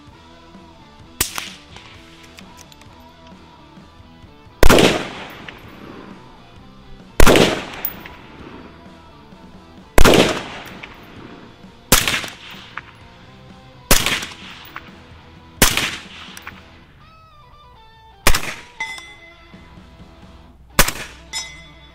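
About nine single rifle shots, two to three seconds apart, over background music. The three in the middle are the loudest: sharp cracks of an unsuppressed .300 Blackout AR-style rifle. The later shots are much quieter, muffled by a GSL Multi-Cal titanium suppressor.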